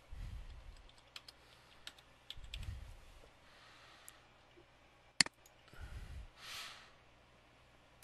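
Computer keyboard being typed on in short, scattered runs of keystrokes, with one much louder sharp click about five seconds in and a few dull low thumps.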